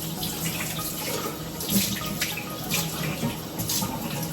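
Wet splashing and sloshing in a kitchen, coming in uneven, irregular surges.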